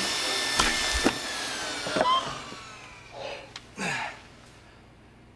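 Benchtop table saw cutting wood, its whine slowly falling in pitch as the blade winds down, with a couple of knocks about a second in.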